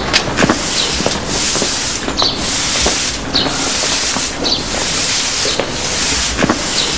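Boots crunching through snow in slow, even steps, about one a second.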